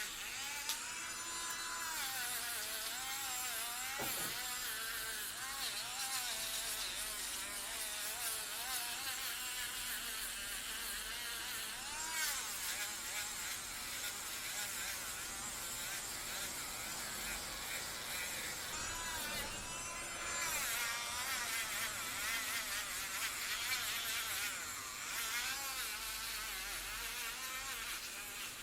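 Electric nail drill running with a high-pitched whine whose pitch wavers up and down, over a steady hiss.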